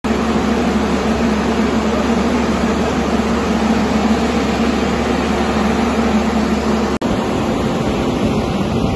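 Police water cannon truck running at close range: a steady engine hum under the rushing hiss of its water jet. About seven seconds in the sound cuts abruptly to a steady rushing noise without the low hum.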